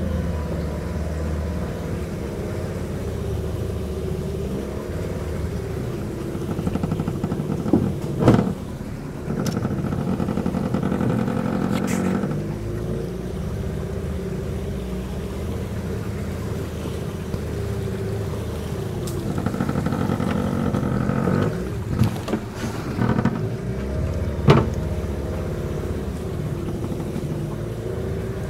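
A small boat's motor running steadily under way, its pitch shifting a couple of times, with a few sharp knocks.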